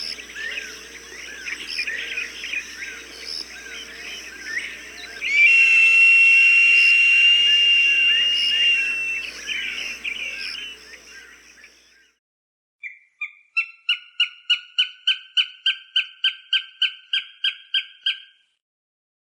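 Recorded hawk calls. First comes a long, level, high-pitched scream, with smaller birds chirping around it. Then, after a brief silence about two-thirds of the way in, a fast run of about seventeen short, sharp repeated call notes, three or four a second, the first few a little lower in pitch.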